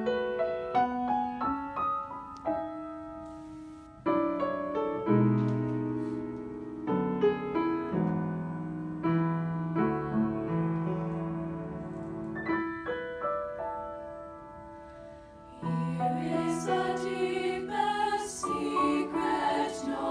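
Piano accompaniment playing a solo interlude of chords and melody notes, swelling and easing off. About three-quarters of the way through, the eight-voice treble choir (SSAA double quartet) comes back in, singing in harmony over the piano.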